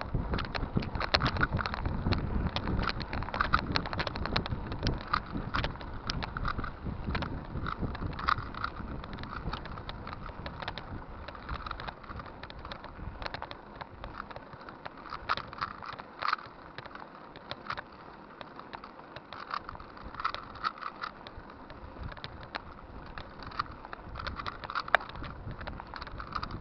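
Bicycle rolling along with frequent small clicks and rattles, over a low rumble that is heavier in the first half and thins out after the middle.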